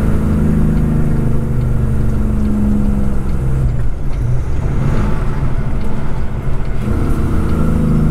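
Kenworth prime mover's diesel engine running at road speed, pulling a loaded triple road train: a steady low drone that wavers for a few seconds midway, then steadies again.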